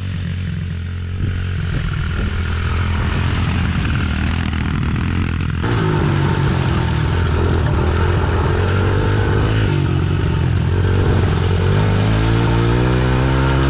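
Motorcycle engines running: first a steady drone, then after a sudden change about five and a half seconds in, an engine revving up and down as it rides over rough ground, its pitch climbing steadily near the end.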